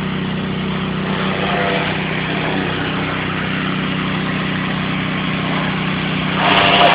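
Petrol pressure washer's engine running steadily under load, with the hiss of its water spray over it.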